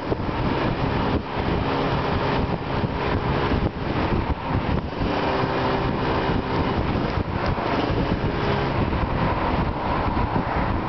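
Yamaha RD250LC's liquid-cooled two-stroke parallel twin running under way through large-can Allspeed expansion chambers, a steady engine note under heavy wind rush on the microphone.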